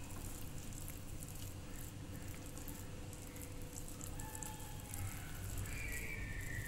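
A bare hand squishing and kneading a thick mix of strained curd, gram flour and spice powder in a bowl: soft, wet squishing with small ticks.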